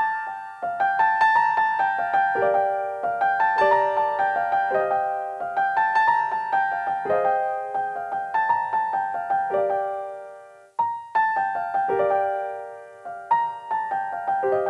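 Solo piano music: struck notes in a repeating melody, each note fading away, with a brief pause about ten seconds in.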